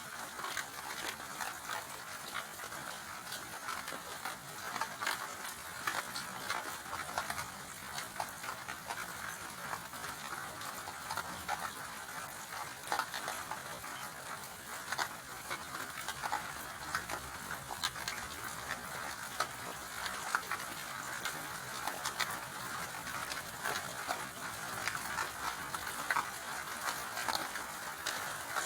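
Steady rain falling, a constant hiss with many small drop ticks and patters throughout; no thunder.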